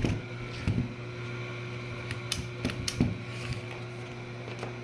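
Scattered light clicks and knocks of seatbelt webbing and hardware being handled and lined up for stitching, over a steady low hum.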